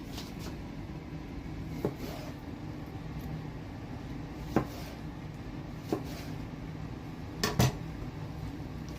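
A few light knocks and clinks of kitchenware on a plate while a dish is garnished, five in all, the last two close together near the end and loudest, over a steady low hum.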